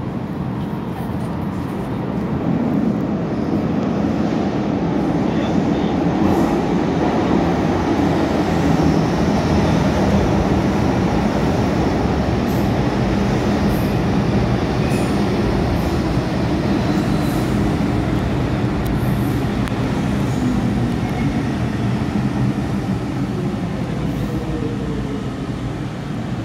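MTR M-Train electric multiple unit running into the station from the tunnel: its rumble grows about two seconds in and stays loud as the cars pass, then eases near the end as the train slows to stop at the platform.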